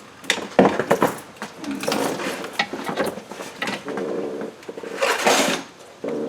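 Metal tools and bits clinking and rattling as someone rummages through a tool drawer, with irregular clicks and clatter throughout.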